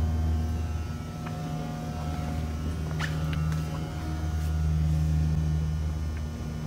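Steady low machine hum that swells and eases slightly, with a fainter steady whine above it and a few light clicks about a second and three seconds in.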